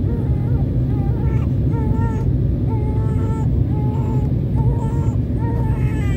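Steady low roar of a jet airliner's engines and airflow heard inside the cabin during the descent to land. Over it, a high-pitched voice makes short wordless sounds that rise and fall.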